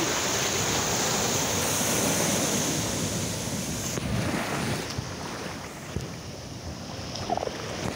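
Sea surf breaking and washing up over wet sand, with wind buffeting the microphone. The wash is louder at first and eases off about four seconds in.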